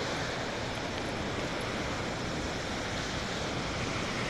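Steady rushing noise of wind and lake surf on a beach, an even hiss with no distinct events.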